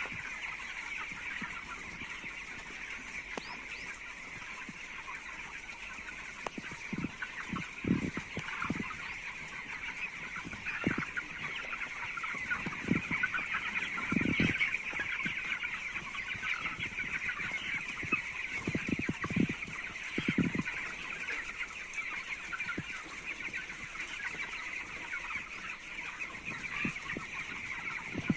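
A large flock of young poultry-farm chicks, about 19 days old, peeping and chirping together in a dense, steady chorus. A few short low thumps come now and then through the middle.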